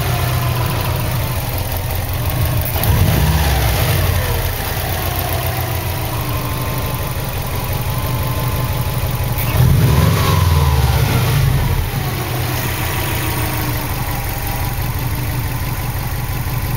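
Turbocharged flat-four engine of a 2003 Subaru WRX idling, blipped up in revs twice, about three seconds in and about ten seconds in, and settling back each time. The engine has a cylinder 4 misfire (code P0304).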